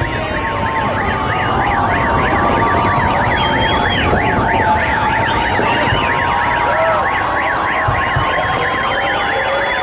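Car alarm warbling, its pitch going rapidly up and down about three or four times a second without a break, with a few low firework thumps near the end.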